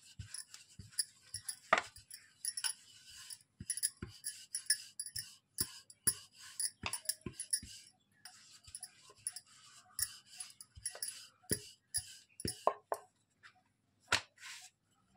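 Rolling pin working dough on a wooden board: irregular light knocks and clicks, mixed with the jingling clink of bangles on the wrist as the hand moves.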